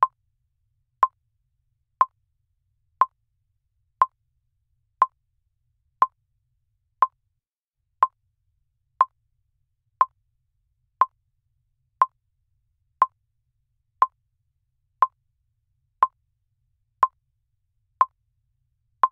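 Countdown timer's tick sound: a short, sharp blip once every second, evenly spaced with silence in between, marking each second as the timer counts down.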